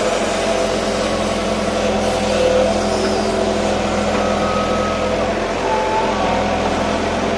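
JCB 140 excavator's diesel engine running steadily under load while the hydraulic arm digs the bucket into a sand pile and lifts it, with a few short high whines partway through.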